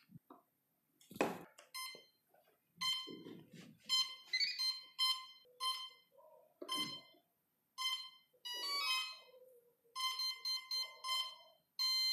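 A drone's brushless motor sounding its electronic speed controller's calibration tones during throttle-range calibration: a series of short electronic beeps, with a quick rising run of notes about four seconds in. A few knocks and rustles from handling the wiring and plugs come between them, the sharpest about a second in.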